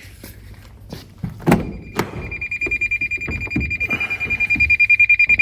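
A few clicks and knocks, then a car's warning buzzer starts about a second and a half in: a high beep pulsing rapidly, several times a second, without stopping.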